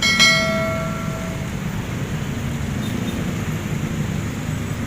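Coach bus diesel engine running steadily close by, with one sudden ringing tone just after the start that fades out over about a second.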